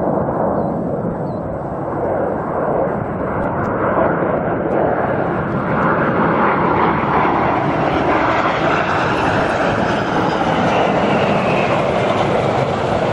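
Jet engines of a heavy Airbus airliner passing close on short final. The steady roar builds over the first few seconds and then holds loud, with a faint whine gliding down partway through.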